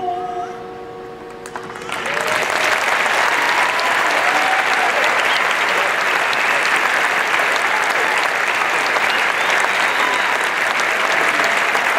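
The band's last held note dies away just after the start, and about two seconds in a large audience breaks into loud, steady applause that continues to the end.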